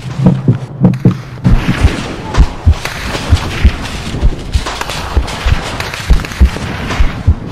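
Soldiers running through dry leaf litter: deep thuds of footfalls, about two to three a second, under a rustling crunch of leaves and gear that sets in about a second and a half in.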